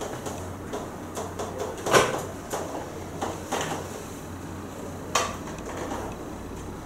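Chalk tapping and scratching on a chalkboard as equations are written by hand, with a sharp tap about two seconds in and another about five seconds in.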